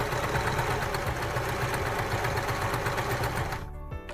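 Janome electric sewing machine running fast, sewing a zigzag seam through stretch knit fabric with a rapid, even clatter of stitches. It stops about three and a half seconds in.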